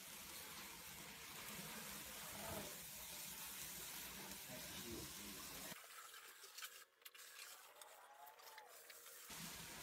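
Cardboard box dragged across a hardwood floor by a leash, a faint scraping hiss whose low rub drops out for a few seconds past the middle.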